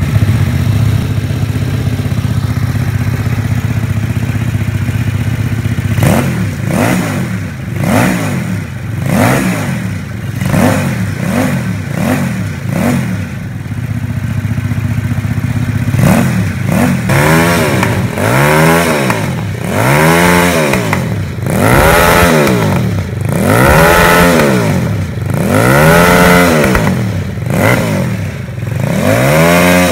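Home-built L-twin motorcycle engine running on both cylinders: it idles steadily for about six seconds, then the throttle is blipped again and again, the revs rising and falling in quick succession. After a brief steady spell it is revved harder and more slowly, about one rise and fall a second.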